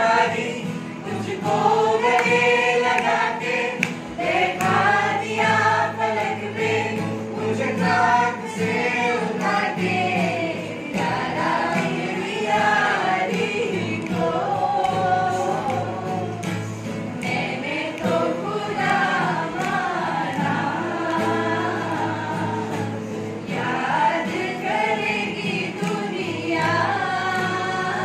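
A group of voices, mostly women's, singing a song together in chorus, with long held notes.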